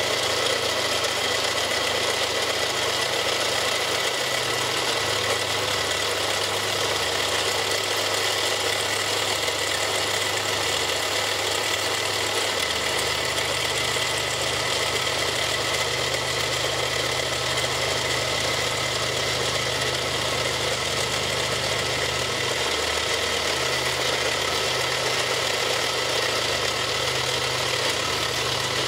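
Vertical milling machine running, its end mill cutting into a plastic block and throwing off chips: a steady machine drone with a low hum that shifts in pitch twice, about halfway through and again near the end.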